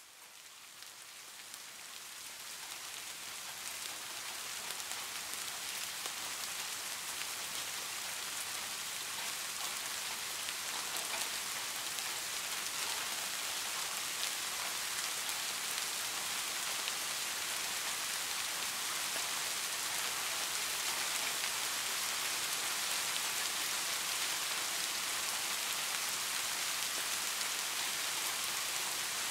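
Steady rain falling, a dense, even hiss of drops that fades in over the first few seconds and then holds steady.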